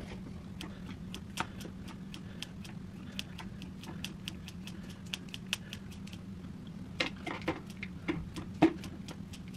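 Kitchen scissors snipping through cooked meat: a run of quick, sharp clicks over a steady low hum. Near the end come a few louder knocks as the plastic containers are handled.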